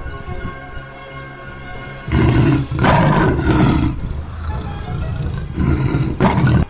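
Lion roaring in loud, rough bursts, the first about two seconds in and two shorter ones near the end, over background music.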